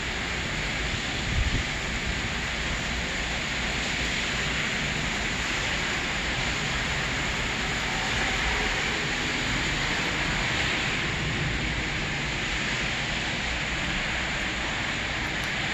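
Heavy thunderstorm rain falling in a steady hiss.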